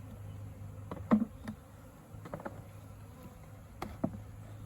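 A honey bee swarm buzzing with a steady low hum, broken by several short sharp knocks, the loudest about a second in, as the bees are shaken and knocked into a hive box.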